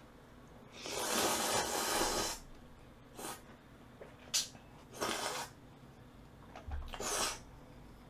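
A person slurping jjamppong noodles into the mouth: one long slurp about a second in, then four short slurps.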